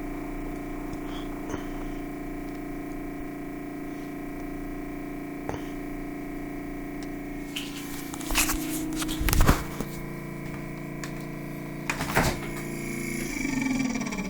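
Refrigerator running with a really loud, steady humming drone made of several tones. A few sharp knocks come in the second half, and near the end the hum sinks in pitch.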